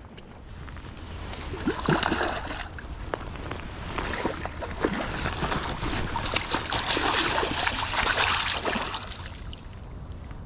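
Water splashing and sloshing in uneven bursts, strongest from about four to nine seconds in.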